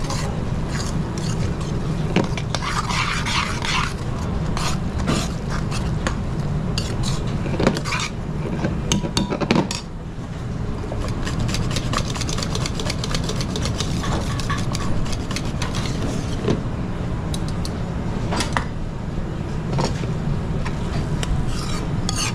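Kitchen work: frequent clinks and knocks of metal utensils against pans and dishes over a steady low hum.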